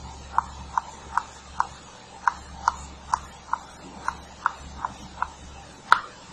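Chalk clicking against a blackboard as numbers are written, a short sharp click every half second or so, with one louder knock near the end.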